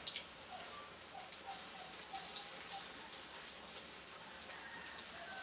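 Banana slices with sugar frying in hot oil in a wok, a steady crackling sizzle. A metal ladle knocks against the wok once at the very start.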